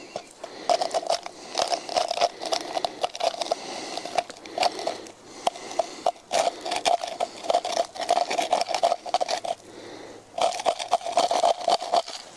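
The rim of a tin can scraped in quick repeated strokes along a spruce trunk, rasping over the bark and prying off resin. It pauses briefly about halfway through and again shortly before the end.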